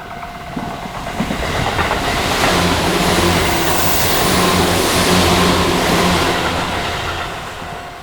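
A Tobu Urban Park Line train passing over a level crossing: the rail noise swells to its loudest about four to five seconds in and fades away, with a low hum underneath. The crossing's warning bell rings under it at the start and again near the end, once the train has gone by.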